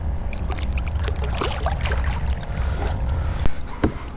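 Water splashing and trickling beside a kayak as a caught fish is let go, with scattered light clicks and knocks, over a steady low rumble.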